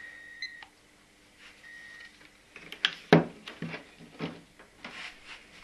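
Handheld digital clamp meter giving two short steady beeps, then a run of sharp clicks and knocks as its jaws are opened and snapped shut around the charger's output lead, the loudest about three seconds in.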